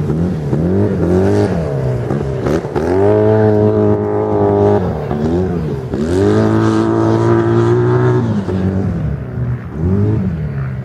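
Off-road 4x4's engine revved hard, repeatedly climbing, holding high and dropping off, with two long high-rev pulls through the middle and a short blip near the end.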